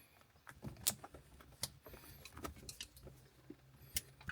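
Scattered clicks and light rattles of the shift lever's clips and mounting being twisted and worked loose.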